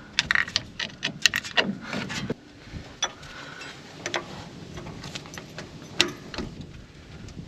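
Metal hand tools clinking and clattering as they are picked up and handled, a quick flurry of clanks for about two seconds, then a few separate clicks.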